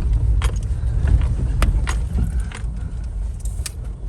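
Low rumble of a car on the move, with a few sharp clicks and rattles over it; the rumble eases off in the second half.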